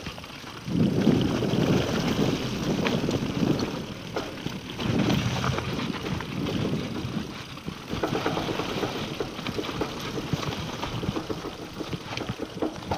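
Scott Genius LT 710 Plus mountain bike ridden along a dirt trail: tyres running over earth and stones, with frequent knocks and rattles from the bike. Heavier rumbling passages come about a second in and again around five seconds.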